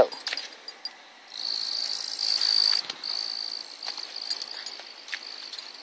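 A cricket trilling in one steady high note that starts about a second in, with a few faint ticks.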